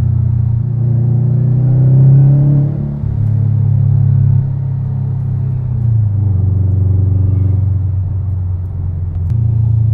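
Subaru WRX STI turbocharged flat-four running through an Invidia Gemini R400 cat-back exhaust, heard inside the cabin as a deep, loud rumble under throttle. The revs climb over the first couple of seconds, fall away about three seconds in, and the engine then settles into a lower, steadier drone.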